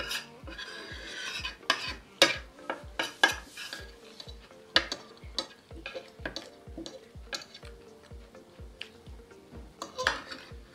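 Cutlery clinking and scraping on a plate, with several sharp clicks, over background music with a steady beat.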